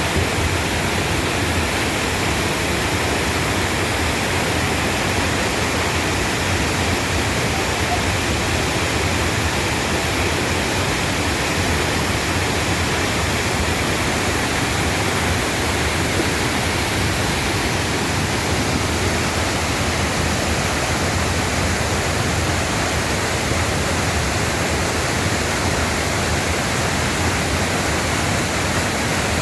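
A mountain-valley waterfall rushing steadily: a loud, even hiss of falling water with no breaks.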